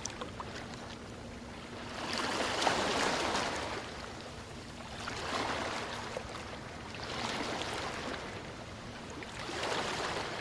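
Ocean waves washing in and receding, swelling and ebbing about every two to three seconds.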